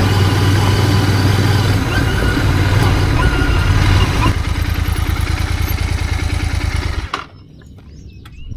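Royal Enfield GT 650's parallel-twin engine running steadily, then switched off abruptly about seven seconds in. A few faint clicks follow.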